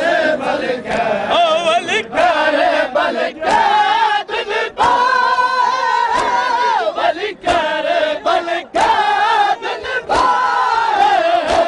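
A large group of men chanting a mourning lament in unison, with sharp slaps of hands beating on bare chests (matam) coming through the chant at irregular intervals.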